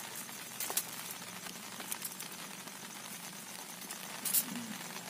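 Faint rustling and crackling of a charred sal-leaf parcel being handled in hot ashes and embers, with a sharper crackle about a second in and another near the end.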